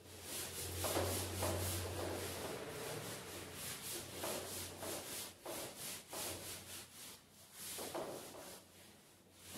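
Whiteboard eraser wiping marker off a whiteboard in repeated back-and-forth rubbing strokes.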